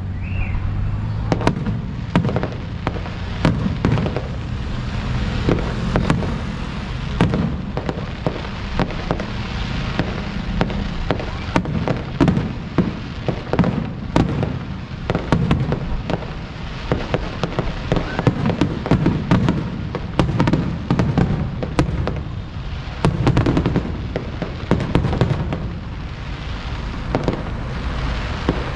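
Aerial fireworks bursting: a dense, irregular series of sharp bangs and crackles over a low rumble.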